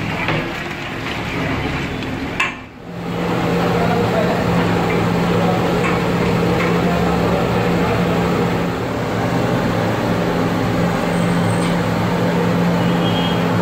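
A steady mechanical hum over a noisy background, with a few faint clinks. The sound drops out briefly a few seconds in, then the hum returns louder.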